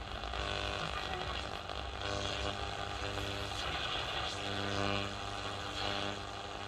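1970s Kenwood KT-5300 FM tuner played through a stereo amplifier while its dial is swept across the FM band: a steady rush of noise between stations, with fragments of broadcasts coming and going.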